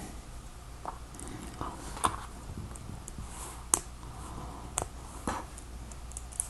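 Lego plastic pieces being handled and pressed together during a build. About seven sharp plastic clicks come at irregular moments, the clearest about two, four and five seconds in.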